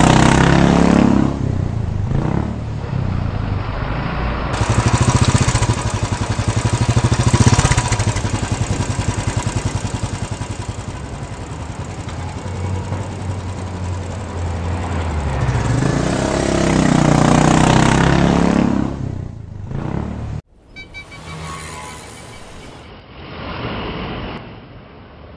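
Motorcycle engine running and accelerating amid street traffic, swelling and easing as it goes. About 20 seconds in, the sound cuts off abruptly to a much quieter outdoor background.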